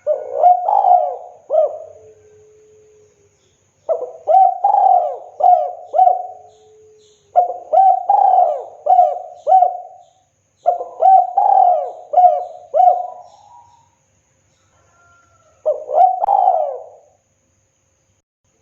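Spotted dove (tekukur) cooing its song: five phrases, each of three to five quick coos, with pauses of a second or two between them.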